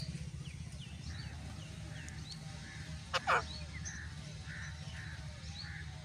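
A parakeet gives one harsh squawk in two quick parts about three seconds in. Faint high chirps repeat throughout over a low steady hum.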